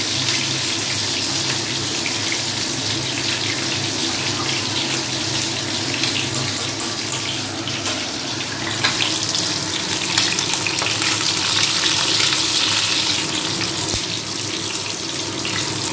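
Steady hiss of stovetop cooking, with chicken pieces frying in hot oil and a pot of rice at the boil, and a few light utensil clicks around the middle.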